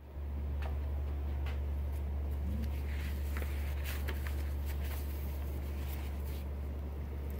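A steady low hum of background room noise, with a few faint light clicks and rustles from handling.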